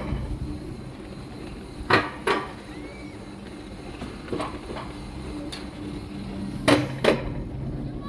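Alpine coaster sled being hauled uphill along its metal rail track: a steady low hum from the ride, with about six sharp clacks and knocks from the sled and rails at irregular intervals.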